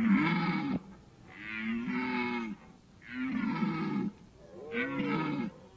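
Red deer stag roaring in the autumn rut: four long roars of about a second each, with short gaps between them.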